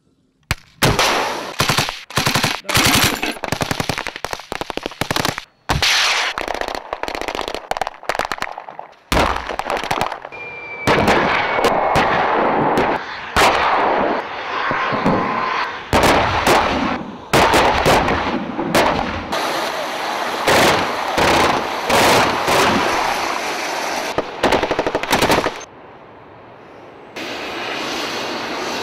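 Live-fire gunfire: long runs of rapid automatic bursts mixed with heavier single shots, including a tank's main gun firing. Near the end the firing stops and a tracked armoured vehicle's engine and tracks run steadily.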